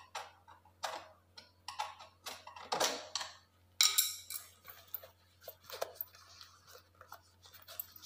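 A thin metal pick scraping and scratching along the molding groove of a wooden door: a run of short, irregular scrapes and clicks, the loudest about three and four seconds in. A low steady hum runs underneath.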